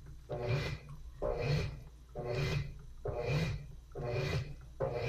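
Washing machine agitating, swishing the wash back and forth in an even rhythm of about one stroke a second, with the motor humming on each stroke.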